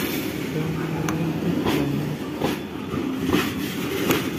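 Freight train wagons rolling past close by, a steady rumble with the wheels clacking over the rail joints about once a second.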